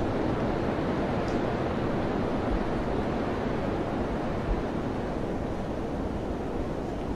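Wind blowing in a steady, continuous rush, with no single gust standing out.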